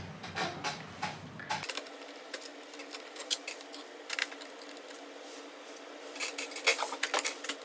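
A screwdriver working screws out of a laptop's plastic bottom case: scattered small clicks, taps and scrapes of metal on plastic, busiest near the end.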